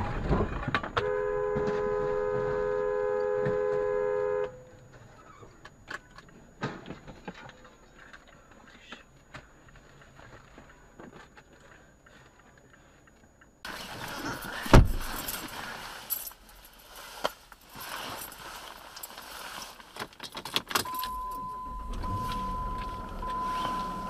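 A car horn blares in a steady two-tone note for about three and a half seconds just after a crash, followed by quiet with scattered small clicks. Later comes a single sharp knock, and near the end an on-off high beep.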